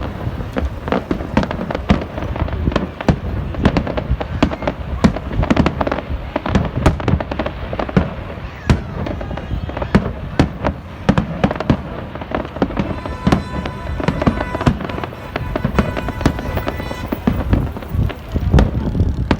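Aerial fireworks display: a dense, continuous barrage of bangs and crackles from shells bursting overhead, with sharp reports close together throughout.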